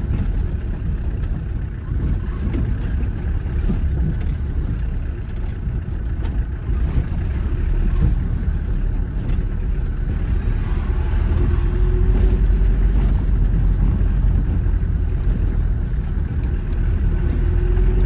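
Steady low engine and tyre rumble inside a car driving along a gravel track, with faint scattered ticks. It grows a little louder about two-thirds of the way through.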